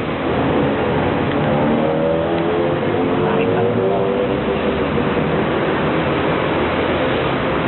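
Street traffic: a steady wash of vehicle noise, with passing engines running and changing pitch as they speed up and slow down, most clearly in the first half.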